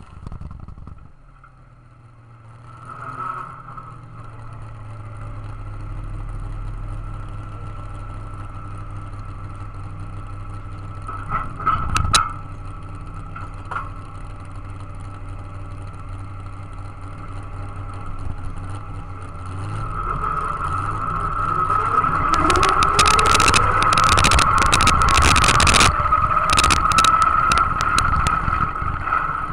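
Modified pulling tractor's engine idling steadily at the line with a constant high whine, then throttled up hard about twenty seconds in and launched, the engine revving with rising pitch. Dense sharp crackling runs through the rest of the pull.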